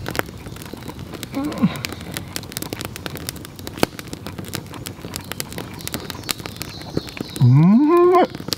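Wood fire crackling in a small fire pit, with many sharp pops and snaps. Near the end a loud rising tone lasts about a second.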